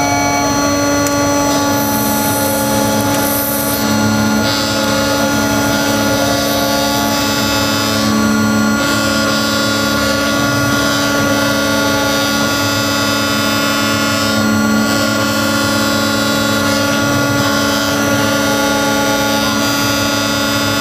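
AR2400 CNC router's spindle running and milling acetal plastic: a loud, steady machine whine made of several held tones over cutting noise, with the noise shifting slightly as the tool moves.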